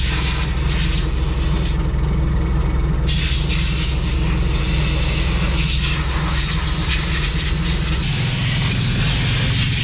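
Bulldozer's diesel engine running steadily, with a strong hiss over it; the hiss drops away for about a second near the start, and the engine's note shifts about eight seconds in.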